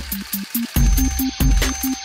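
Background electronic music with a steady beat and a fast repeating synth line.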